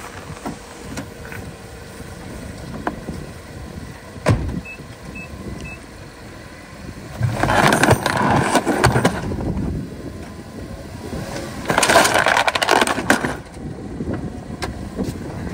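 Minivan manoeuvring on icy, snowy ground during a drive-over test: a sharp knock about four seconds in, three short high beeps, then two loud spells of engine and tyre noise, each lasting a couple of seconds.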